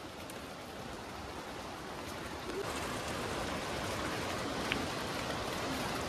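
Steady rush of a flowing river, growing slightly louder over the first few seconds and then holding even.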